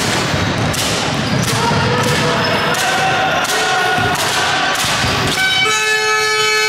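A basketball being dribbled on a hardwood gym floor, a bounce about every three-quarters of a second, with voices echoing in the hall. Near the end a steady horn-like buzzer starts and holds.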